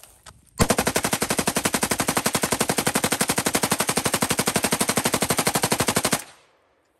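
A fully automatic gun fires one long, unbroken burst of about five and a half seconds at roughly twelve to thirteen rounds a second, a mag dump, then stops abruptly.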